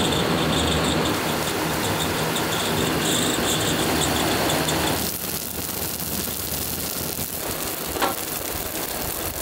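Wood fire burning hard with electric floor fans blowing air into it: a steady rushing noise with a low hum from the fans. The sound changes abruptly about five seconds in, and a single sharp click comes near the end.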